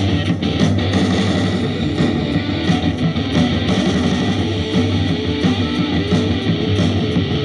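A rock band's recording with guitar, loud and dense without a break.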